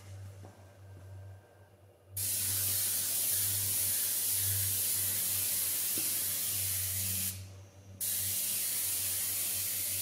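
Airbrush spraying ceramic coating onto a car's honeycomb grille: a loud, even hiss of air and coating that starts about two seconds in, stops briefly near three-quarters of the way through, then starts again. A low steady hum runs underneath.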